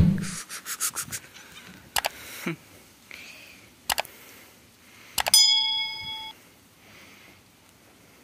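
A run of sharp clicks and taps, then about five seconds in a single metallic ding that rings for about a second.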